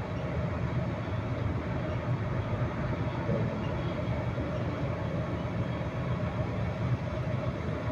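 Heavy machinery running with a steady low drone that holds even throughout, with no separate knocks or bangs.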